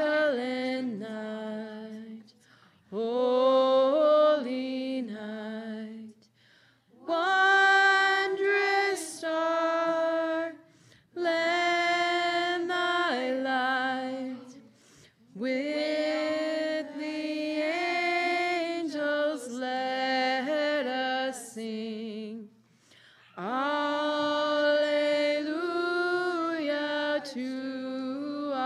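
A small group of women singing a Christmas carol unaccompanied, in phrases a few seconds long with short breath pauses between them.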